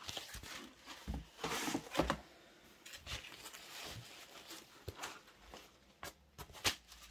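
Diamond-painting canvases being handled and slid into a plastic storage drawer: soft rustling and scraping with several light knocks.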